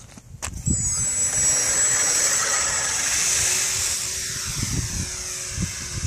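Electric motor and propeller of a GWS Slow Stick RC plane spinning up sharply to a high whine under full throttle for take-off, then running steadily and growing fainter in the last couple of seconds as the plane climbs away.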